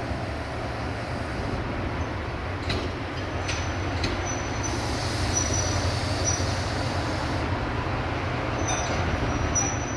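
Diesel-hydraulic shunting locomotive running as it rolls slowly along the station track, with a steady low engine hum throughout. A few sharp clicks come from the wheels over the rails, and a thin high wheel squeal rises about halfway through and again near the end.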